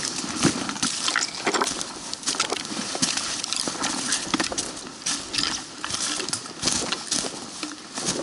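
Footsteps crunching through dry leaf litter, with trekking poles striking the ground and twigs brushing past, in an irregular walking rhythm.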